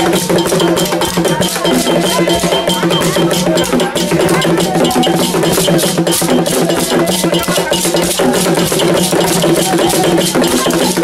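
Live traditional Agni percussion music accompanying a Komian dance: a fast, even beat of sharp rattle- and bell-like strikes over steady held tones.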